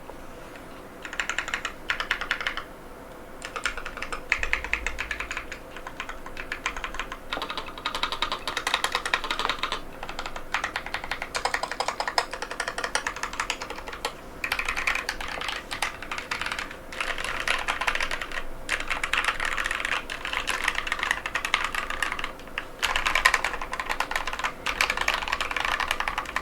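Fast typing on a NovelKeys NK87 aluminium-case mechanical keyboard with KTT Matcha tactile switches: a dense run of key clacks with short pauses early on.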